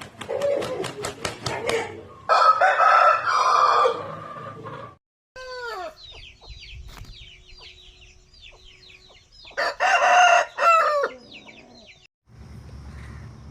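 Aseel chickens calling: loud crowing and clucking calls twice, with a long run of short, high, falling peeps in between. A quick run of clicks comes at the start, and the sound cuts out abruptly twice.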